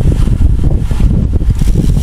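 Loud, gusting wind buffeting on the microphone of a camera riding on a racing bicycle at speed.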